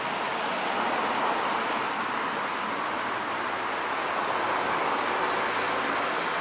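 Steady road traffic noise: the hiss of vehicles passing, with no clear engine note.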